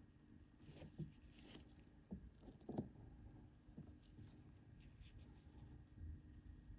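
Faint handling sounds of gloved fingers with 2-euro coins on a textured plastic surface: soft rustles and scrapes as one coin is laid down and another picked up, with one small tap a little before the middle.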